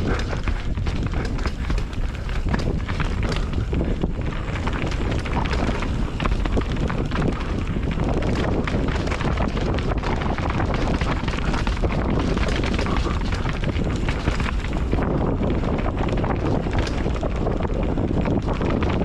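Wind rushing over the microphone on a fast mountain-bike descent, with tyres on dirt and steady rattling and knocks from the bike over rough trail.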